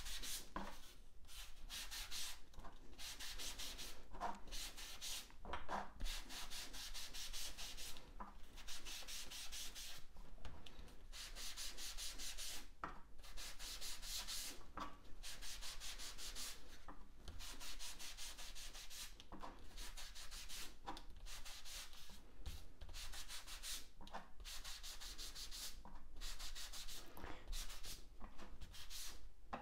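Small ink-applicator sponge rubbed in repeated strokes over embossed cardstock: a dry scrubbing hiss, broken by short pauses between strokes.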